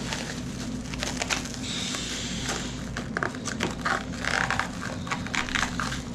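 Plastic shrink wrap crinkling, crackling and tearing as it is cut and pulled off a bike, with scattered sharp clicks and scrapes over a steady low hum.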